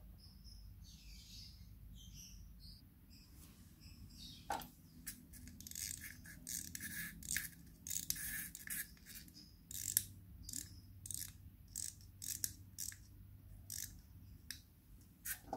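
Small hard-plastic toy parts being handled: a quick run of light clicks and scrapes from a Polly Pocket playset's toy train engine turned over in the fingers, starting a few seconds in after a faint quiet stretch.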